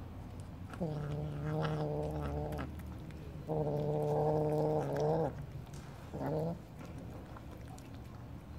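A cat growling low at the shared pile of wet food, the sign of guarding it from the other cat eating there. There are two long, steady growls of about two seconds each, then a short one.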